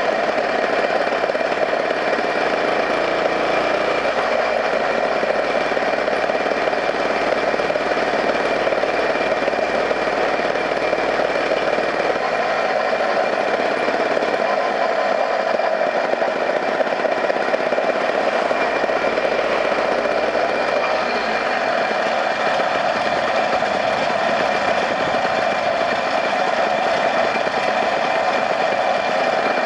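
Engine and road noise from a vehicle driving steadily along a road, with a constant high whine over it.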